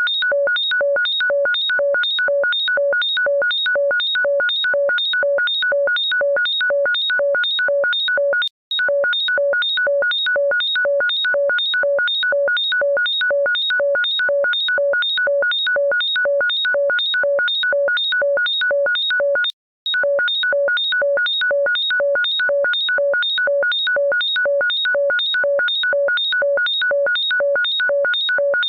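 Electronic ringtone beeping rapidly and without letup, just under three short, shrill multi-pitched bleeps a second. It breaks off briefly twice, about a third of the way and two thirds of the way through.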